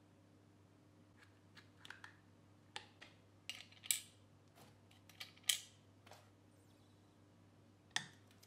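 Irregular sharp clicks and light taps of small parts being handled: a clear acrylic control panel fitted over an amplifier board's potentiometer shafts. The loudest clicks come about halfway through and near the end.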